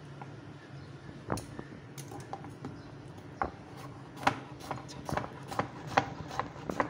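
Kitchen knife slicing peeled tinda (Indian round gourd) on a wooden cutting board: sharp knife taps on the board, a few at first, then coming quicker, about two or three a second, from about four seconds in.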